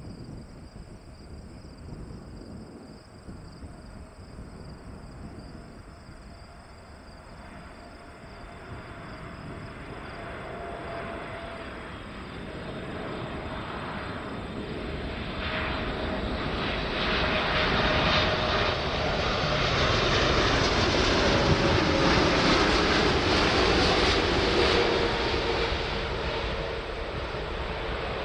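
Boeing 747-8F freighter's four GEnx jet engines on final approach, a jet whine and rumble growing steadily louder as the aircraft comes near. It is loudest about twenty seconds in and eases slightly near the end, its engine tone falling a little in pitch as it passes.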